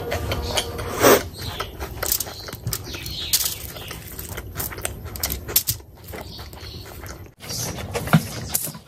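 Close-miked wet chewing and lip-smacking, with the sticky squelch of fingers mashing rice into oily curry: a run of irregular wet clicks and smacks.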